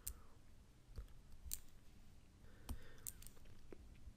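A handful of faint, scattered clicks of a stylus tapping on a digital writing tablet while a number is written.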